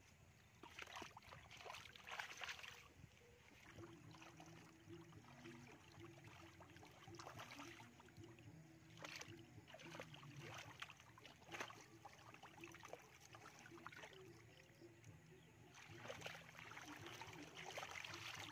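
Faint, irregular squelching and splashing of hands digging through wet mud and shallow muddy water while grabbing fish. A steady low hum sits underneath from about four seconds in.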